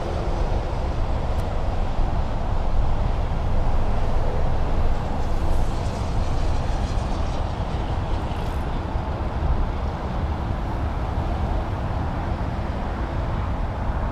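Steady highway traffic noise, a little louder a few seconds in.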